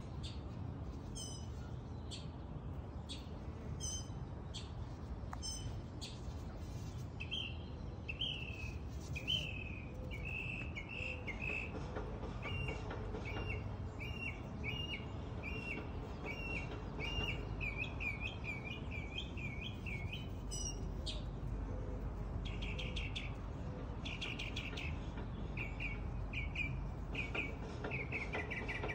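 Songbirds singing: sharp, high chirps about once a second, then a long run of short repeated notes, then quick trilled phrases near the end, over a steady low background rumble.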